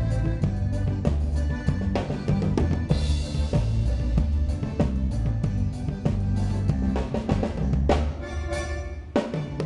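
A band playing live during a sound check: a drum kit with kick, snare and rimshots over a steady bass line, with a cymbal crash about three seconds in.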